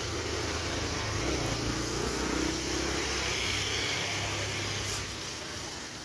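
A motor vehicle engine running steadily with street traffic noise. The low hum drops away about five seconds in.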